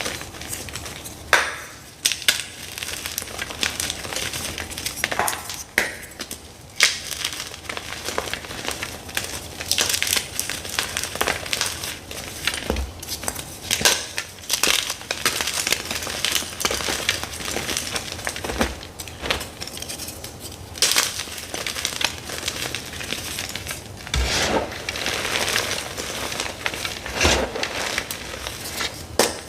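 Dyed gym chalk blocks being crushed, a steady crunching and crumbling broken by frequent sharp snaps.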